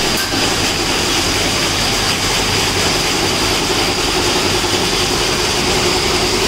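Roasted-peanut red-skin peeling machine running steadily, its friction rollers turning with a constant hum and a high steady whine, over the hiss and rattle of peanuts pouring through the chutes.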